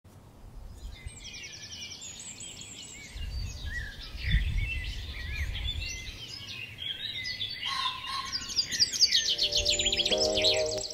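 Several birds chirping and trilling at once, a dense birdsong chorus with fast repeated trills. A low rumble sits under it from about three to six seconds in, and musical notes come in near the end.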